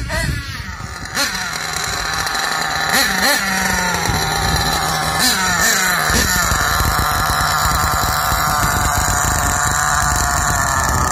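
Small nitro glow-fuel engine of a Tekno MT410 monster truck converted to nitro, running with a few quick throttle blips as the truck comes in, then settling to a steady idle for the second half.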